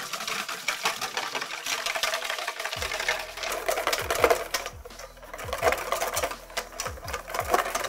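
Wire balloon whisk beating heavy cream by hand in a stainless steel bowl: a fast, steady clatter of the wires clicking and scraping against the metal.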